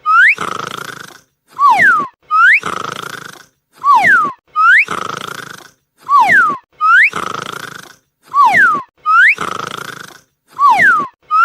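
A dog snoring in a steady rhythm, about one breath cycle every two seconds. Each breath carries a whistle: a short one sliding down, then one sliding up that leads into a hissing breath, which fades away.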